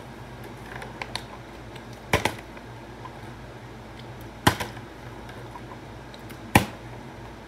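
Plastic water bottle being flipped and landing with a sharp knock three times, about two seconds apart, each followed by a smaller knock as it bounces or tips over; the last landing is the loudest.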